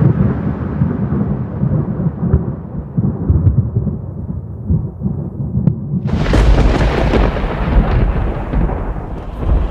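A deep rolling rumble like thunder slowly dies away, then a sudden loud thunderclap-like crash about six seconds in rumbles on.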